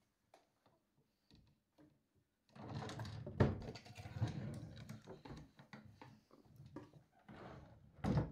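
Wooden chest of drawers being searched: a drawer slides open and its contents are rummaged through with rustling and light knocks. There is a sharp knock about three and a half seconds in and a louder thud near the end.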